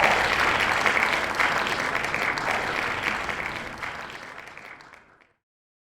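Applause, a dense patter of many hands clapping, fading out steadily over about five seconds and then stopping.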